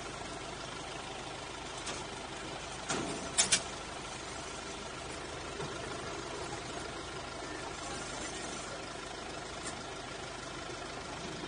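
A narrow-gauge train's engine idling steadily while the train stands, with three sharp knocks about three seconds in, the last two close together.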